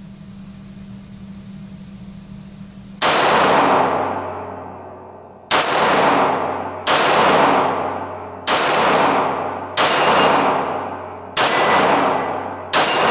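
SIG P230 pistol firing .380 ACP rounds: seven single shots about one to two and a half seconds apart, the first about three seconds in, each trailing a long echo off the concrete walls of an indoor range. A low steady hum comes before the first shot.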